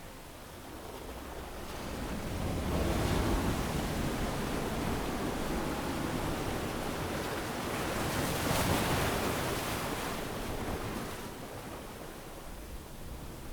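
Ocean waves breaking and washing onto a beach: a swell of surf noise builds a couple of seconds in, holds with a second rush of spray near the middle, then ebbs away toward the end.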